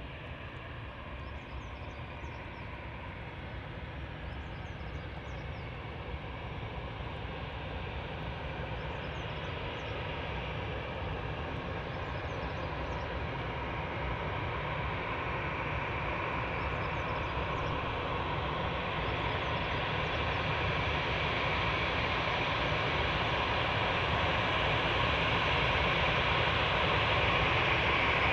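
Jet airliner engines, a steady rushing whine that grows gradually louder as the aircraft draws nearer.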